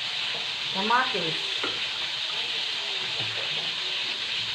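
Fish frying in hot oil in a pan: a steady sizzle.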